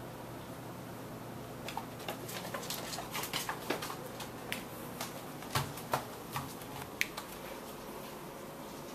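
A cat's paws and claws pattering and clicking on a hardwood floor as it chases a laser dot: irregular light taps from about two to seven seconds in, over a faint steady room hum.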